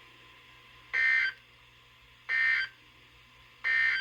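Emergency Alert System end-of-message data tones: three short bursts of digital data about a second and a quarter apart, each about a third of a second long, signalling the end of the alert message.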